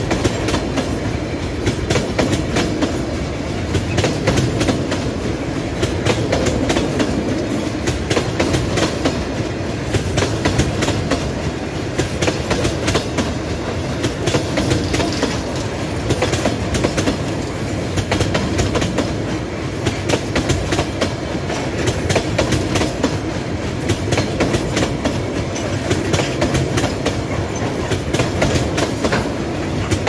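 Empty railway tank cars of a freight train rolling past close by: a steady rumble of steel wheels on rail, with a constant clatter of clicks as the wheels pass over the rail joints.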